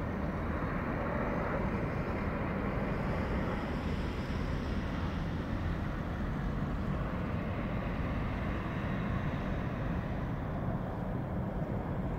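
Steady low rumble of distant vehicle noise, even throughout, with no clear rise or fall.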